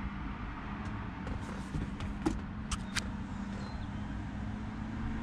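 Steady low rumble with a faint constant hum inside a parked car, and three light sharp clicks between two and three seconds in.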